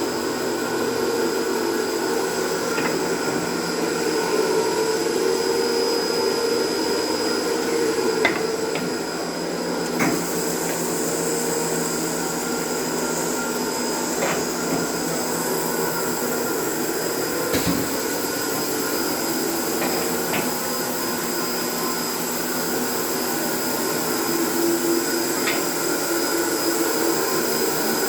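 MSS-S1W1 through-feed edge sanding machine running steadily, its motors and sanding units giving a constant whirring hum with several steady tones. A few short sharp clicks break through it at intervals.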